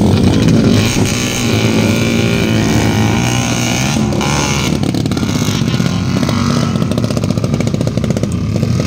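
Dirt bike engine revving up and down under load as the bike bogs down in deep mud, then settling into a steadier fast-pulsing run.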